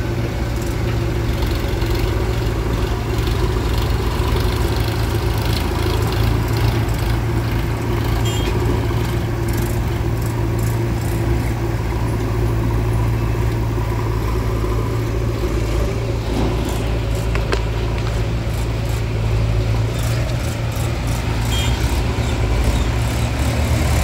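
Heavy diesel machinery engine running steadily at a low pitch, with scattered light knocks and clatter.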